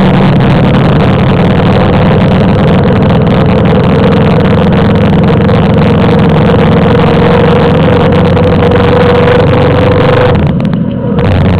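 Motorcycle engine running steadily under way, its pitch creeping slowly upward. A little over ten seconds in the sound briefly drops away for under a second, then picks up again.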